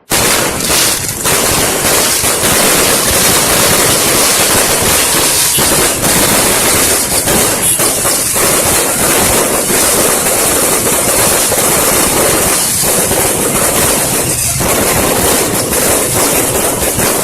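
Dense, continuous barrage of fireworks: many overlapping bangs and crackles merging into one loud, unbroken din with no pauses.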